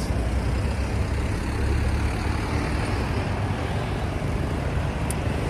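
Busy street traffic passing close by: steady engine and road noise with a constant deep drone.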